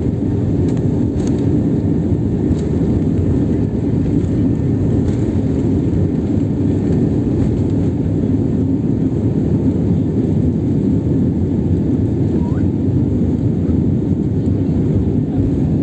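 Airliner cabin noise during takeoff: the engines at takeoff power make a loud, steady, deep rumble, with a few faint clicks in the first few seconds.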